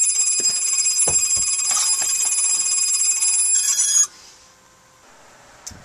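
Mitsubishi i-MiEV electric traction motor fed by a small variable frequency drive, spinning slowly and whining with several steady high-pitched tones that cut off suddenly about four seconds in. A few light knocks sound over the whine.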